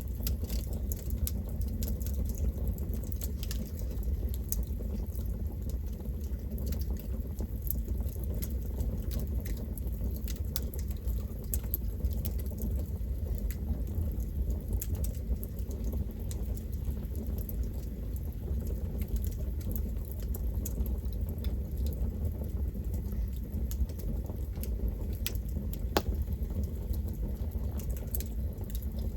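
Campfire burning: wood crackling, with many sharp pops scattered throughout over a steady low rumble of the flames.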